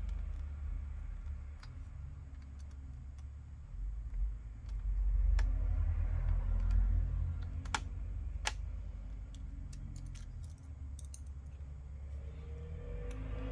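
Small screws being driven into a laptop's plastic case with a screwdriver: scattered light clicks and ticks over low handling rumble, with a few sharper clicks in the middle.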